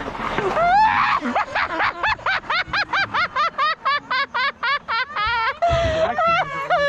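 High-pitched giggling in a quick run of short bursts, about five a second, from someone riding down a roller slide, ending in a drawn-out wavering call.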